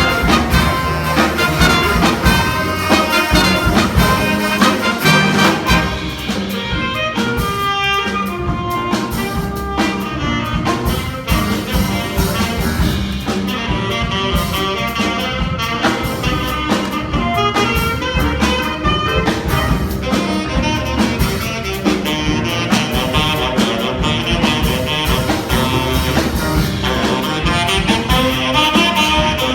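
Music: a melody of brass instruments over a steady beat.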